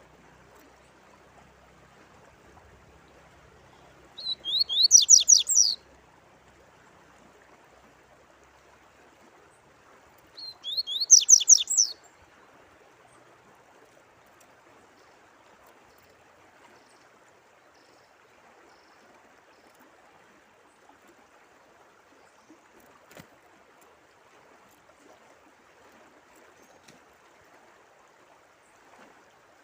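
A songbird singing two short, fast trilled phrases of high sweeping notes, about six seconds apart, over a faint, steady sound of running water.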